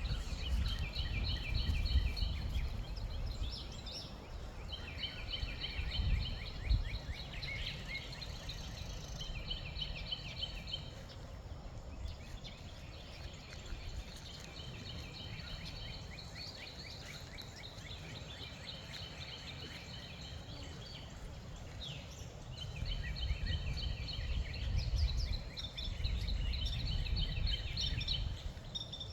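Birds singing in repeated rapid trilling phrases, with wind buffeting the microphone as a rumble that swells and fades.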